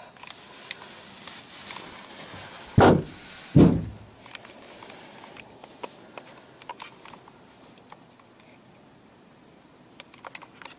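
Two short, loud rubbing noises close to the microphone about three seconds in, then faint scattered clicks and taps.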